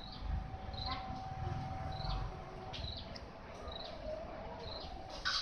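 Short high bird chirps, repeating roughly once a second, over a faint steady hum.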